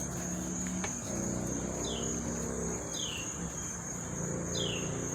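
Insects trilling steadily at a high pitch, with a short falling chirp repeating about once a second and a faint low hum underneath.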